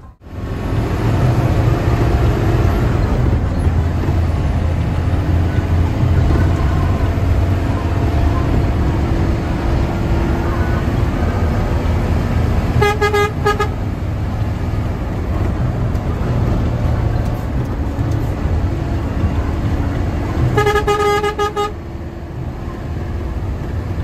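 Bus diesel engine running steadily at speed, heard from inside the cabin, after a brief dropout at the very start. A horn sounds twice in short pulsing blasts of about a second each, about halfway through and again a few seconds before the end.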